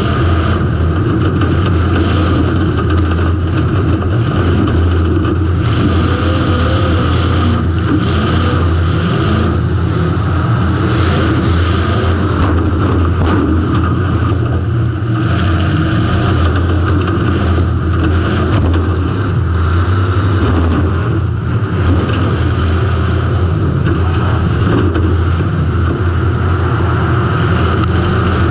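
Demolition derby car's engine running steadily and loud, heard from a camera on board the car, with a deep constant drone.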